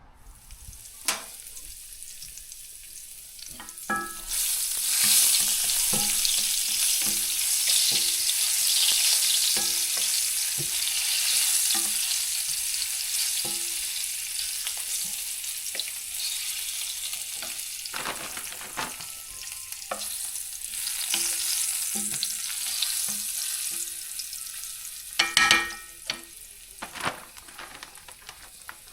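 Food sizzling in a frying pan, the sizzle swelling about four seconds in, with light knocks of a utensil against the pan throughout and a louder clatter near the end.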